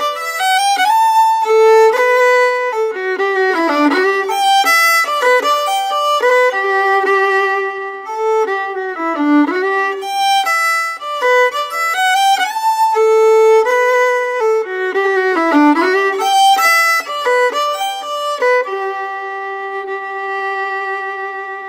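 Fiddle playing a slow, melancholy Shetland tune, one line of melody, which ends about three-quarters of the way through on a long held note with vibrato that slowly fades away.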